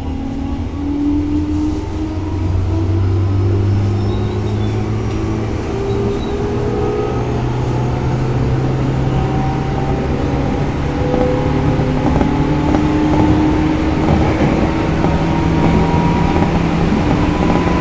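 JR 205 series electric train heard from inside the car: the traction motors' whine climbs slowly in pitch as the train accelerates, over steady wheel-on-rail running noise.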